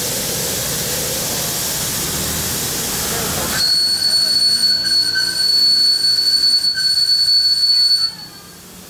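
Ride-on live-steam miniature locomotive standing with steam hissing steadily, then its steam whistle sounds one long, high-pitched blast of about four and a half seconds that cuts off sharply.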